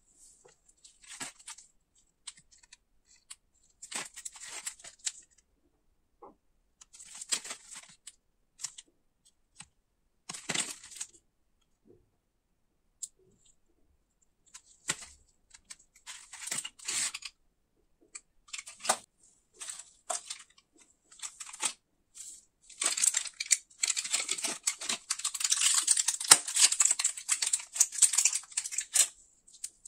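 Gloved hands handling a chewing-gum pack's cardboard box and plastic-and-foil blister tray: short scattered rustles and taps with quiet gaps between them. Near the end comes a few seconds of dense crinkling and tearing as a piece of gum is pressed out through the foil.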